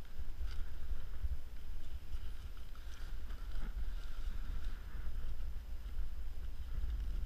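Low rumble of wind buffeting the microphone, with a few faint clicks from handling the fish and the ice rod's reel.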